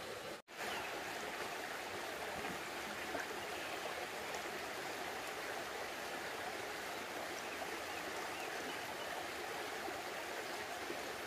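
Shallow mountain stream running over rocks, a steady, even wash of water. The sound drops out for an instant about half a second in.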